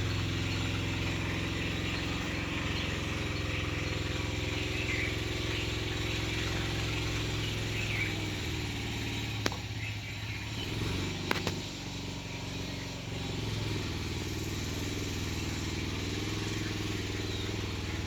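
A motor vehicle engine running steadily with small changes in speed, with a couple of sharp clicks about halfway through.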